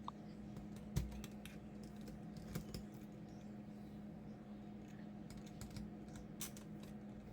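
Scattered small clicks and taps of tools and parts on a laptop being taken apart, the sharpest about a second in, over a faint steady hum.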